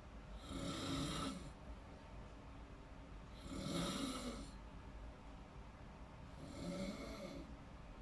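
A person snoring in deep sleep: three snores about three seconds apart, each a low pitched snore with a breathy hiss.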